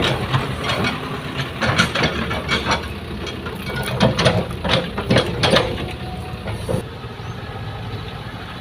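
Heavy diesel machinery running steadily, with a string of short clanks and hisses over the first six seconds. From about seven seconds in it settles to a quieter, steady engine hum.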